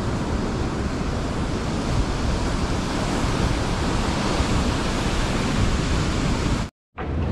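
Ocean surf breaking and washing around the pier pilings, a steady rush, with wind rumbling on the microphone. The sound cuts out for a moment near the end.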